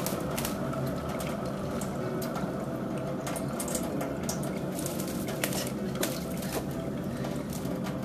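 Kitchen tap running in a thin stream into a stainless steel sink, with a steady splashing hiss and many small sharp ticks of water spattering.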